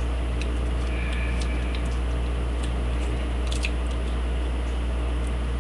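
Faint, scattered ticks and scrapes of a homemade lock pick and tension wrench working inside a lock, over a steady low hum and hiss.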